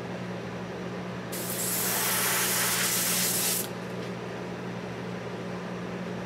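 Airbrush spraying paint at about 15 PSI: one hiss of air and paint, starting about a second in and lasting a little over two seconds, over a steady low hum.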